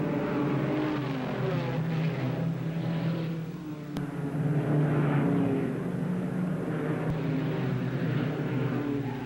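Several stock car V8 engines running at racing speed as a pack of cars passes through a turn, the sound changing abruptly about four seconds and about seven seconds in.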